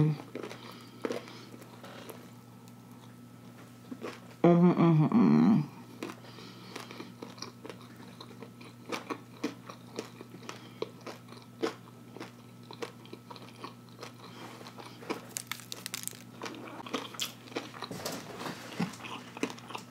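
Close-up chewing of a mouthful of fried, breaded catfish: a steady run of small wet crunches and mouth clicks. A brief vocal sound, like an 'mm', breaks in about five seconds in.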